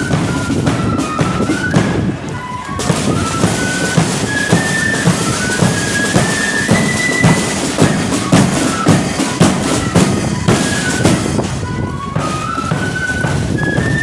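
Marching flute band playing: a quick flute melody over steady side-drum beats. The tune drops out briefly about two seconds in while the drums carry on.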